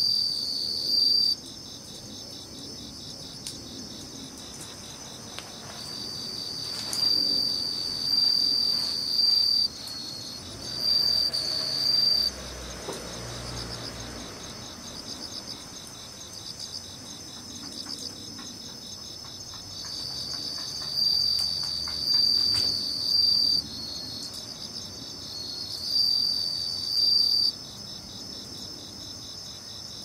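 Crickets chirping: a high, pulsing trill that runs throughout and swells into louder spells of one to three seconds several times, over faint scattered pops of a wood fire crackling.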